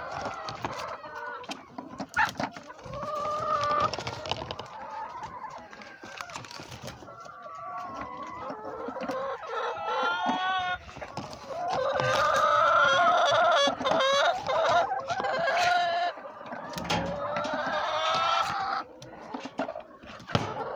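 Hens clucking and calling in a chicken coop, many calls overlapping and loudest for a few seconds past the middle, with a few sharp knocks.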